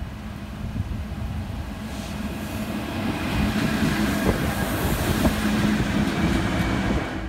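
Illinois Central and CN diesel locomotives passing close by, engines running with a steady low drone under the rumble of wheels on the rails. It grows louder about three seconds in as the units come alongside, then cuts off suddenly.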